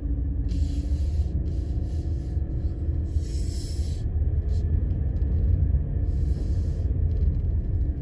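Low, steady rumble of a car driving slowly, heard from inside the cabin.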